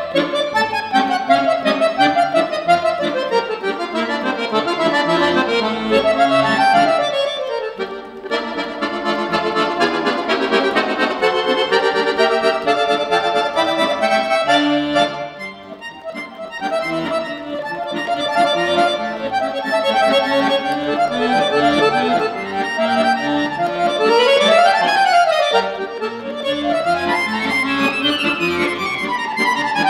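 Solo piano accordion playing a lively piece, with quick scale runs sweeping up and down in pitch, several of them near the end, and short breaks in the phrasing about eight and fifteen seconds in.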